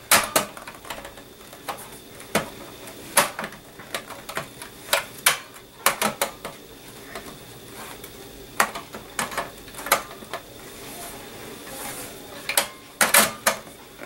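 Slim DVD drive being worked into its bay in a metal computer case: irregular sharp metal clicks and knocks as it is jiggled and pushed, the drive sticking instead of sliding in. A cluster of louder clicks comes near the end.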